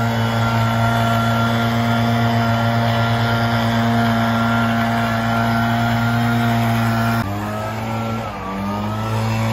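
Backpack leaf blower engine running steadily at high throttle. About seven seconds in it drops in level, dips briefly in pitch and then climbs back.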